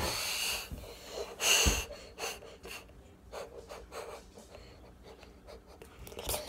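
Heavy breathing close to the microphone: two loud breaths in the first two seconds, then quieter breathing with faint clicks of the phone being handled.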